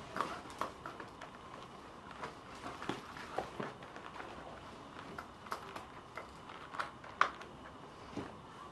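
Leather belt and leather belt holster being handled and taken off at the waist: irregular light clicks and knocks of the buckle and leather, the sharpest about seven seconds in.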